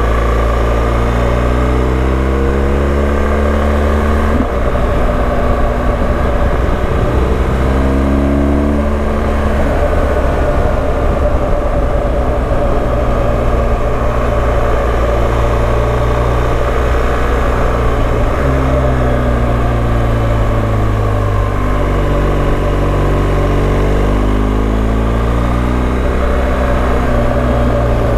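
BMW GS adventure motorcycle's engine under way, its pitch climbing as it pulls and dropping back at gear changes: once about four seconds in, again near ten seconds, then steadier, then climbing and falling again in the last third.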